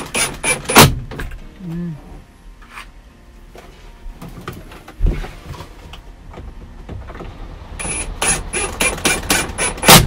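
Cordless drill-driver run in quick short bursts, about four or five a second, driving screws to fix an air-conditioner unit to a wall panel. The bursts come near the start and again over the last two seconds, with a single knock about halfway through.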